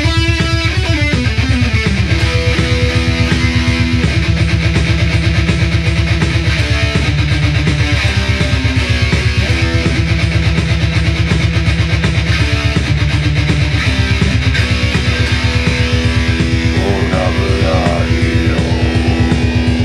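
Distorted electric guitar playing a heavy metal riff, with held notes that change every second or two over a fast, even pulse.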